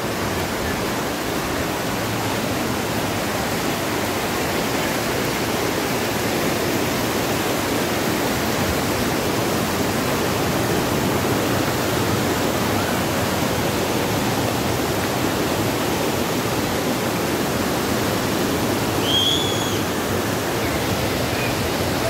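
Waterfall pouring over a rock face onto boulders: a steady rush of falling water. A brief high chirp sounds over it near the end.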